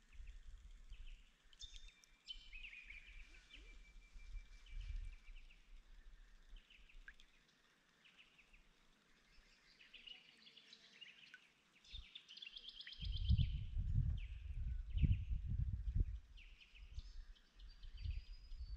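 Wild birds calling in the background: scattered short chirps, one held whistle a few seconds in, and a fast trill past the middle. From about two-thirds of the way through, an irregular low rumble comes in under the bird calls.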